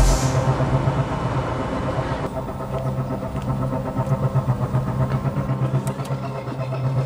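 A steady low droning hum whose level pulses rapidly up and down.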